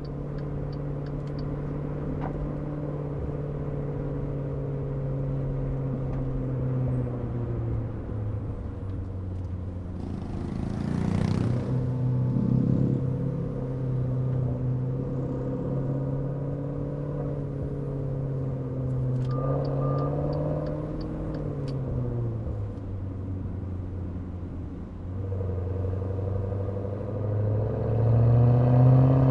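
Maserati Levante Trofeo's twin-turbo V8 exhaust, heard through an exhaust microphone, running steadily at low revs while driving. Near the end it rises in pitch and loudness as the car accelerates.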